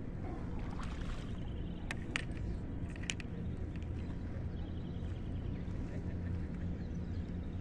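Tilapia being landed at the water's edge: a few brief sharp splashing sounds about two and three seconds in, over a steady low rumble.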